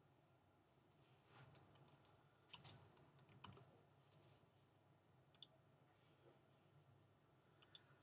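Faint computer keyboard typing, a short run of keystrokes, followed by a couple of single mouse clicks.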